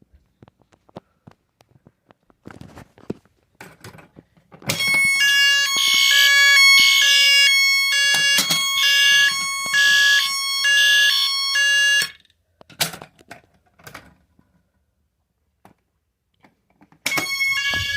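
Fire alarm going off in a test: a loud electronic signal of several steady tones pulsing about once a second. It sounds for about seven seconds, cuts off abruptly, then starts again near the end, with small clicks and knocks in the gaps.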